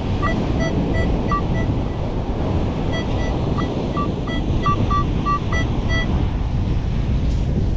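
Metal detector giving short, rapidly repeated electronic beeps at a high and a lower pitch while sweeping over a target, in two bursts, over heavy wind on the microphone and surf.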